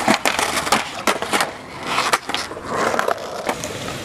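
Skateboard on concrete: repeated sharp clacks and knocks of the board, with a scraping slide of the board along a concrete ledge a little past the middle.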